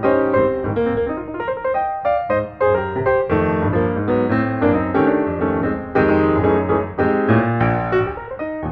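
Background solo piano music, a steady run of separate notes and chords.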